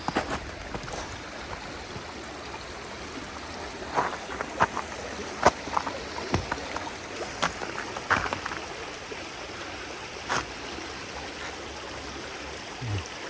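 Small babbling brook, water running and trickling steadily, with a few short sharp clicks scattered through.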